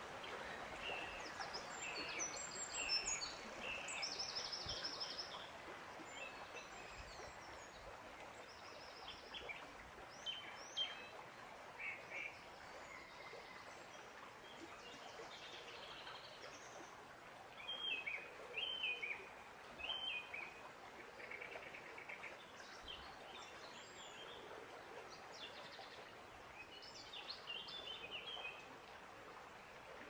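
Several small birds singing and calling in short, scattered chirps and phrases, with a cluster of louder calls about eighteen to twenty seconds in, over a steady background hiss of running water.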